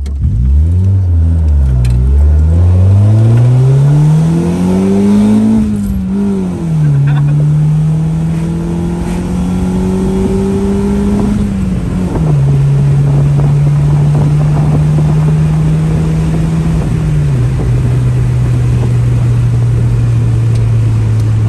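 A manual car's engine pulling away under acceleration: the revs climb, dip once, and climb again. There are three upshifts, about six, twelve and seventeen seconds in, each dropping the engine note, with steady running between them.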